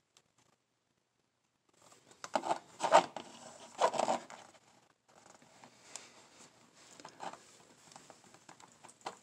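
Plastic blister pack and cardboard backing card of a diecast car being handled: a few loud crinkles and scrapes, then lighter rustles and small clicks.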